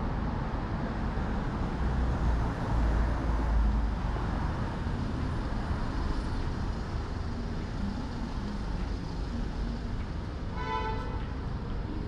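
Street traffic: a steady hum of vehicles with a low engine rumble that swells about three seconds in as a vehicle passes. Near the end comes a short pitched tone, like a brief horn toot.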